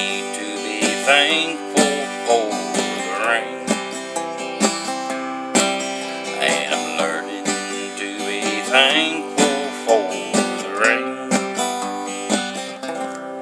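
Acoustic guitar playing the instrumental close of a country ballad, chords picked at a steady pace, then dying away near the end.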